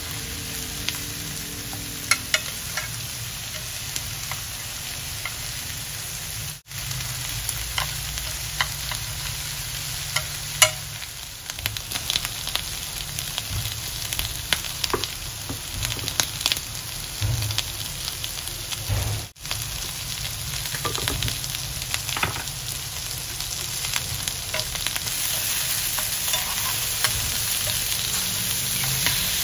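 Food frying in a hot pan: a steady sizzle with many small crackles and pops, cutting out for an instant twice.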